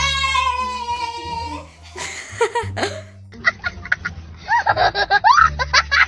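A long held high-pitched vocal note, then a young child laughing hard in repeated bursts of rising and falling pitch, over music with a steady low bass.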